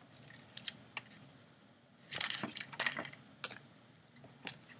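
Paper flaps being folded up and pressed down by hand: a few light clicks and taps, with a stretch of paper rustling and crinkling about halfway through.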